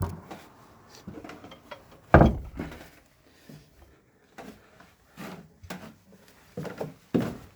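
Footsteps, thudding irregularly, with one louder thump about two seconds in and quicker steps near the end.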